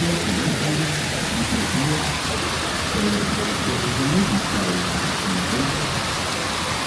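Indistinct voices of people talking, faint under a steady rushing hiss.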